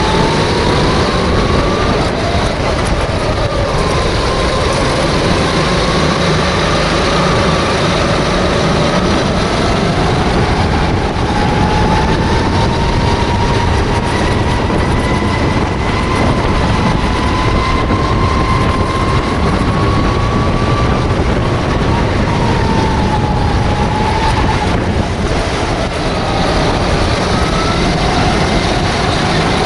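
Sodi rental go-kart's engine running hard, its pitch rising and falling as the kart speeds up out of corners and slows into them, over heavy wind rush and rumble on the onboard microphone.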